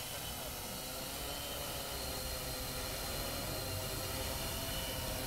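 Hexacopter's six electric motors and propellers running steadily: several steady whining tones over a hiss, slowly getting louder.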